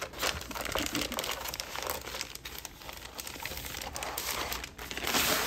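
Clear plastic packaging sleeve crinkling and rustling as hands pull a pack of scrapbook paper out of it, with a louder burst of crinkling near the end.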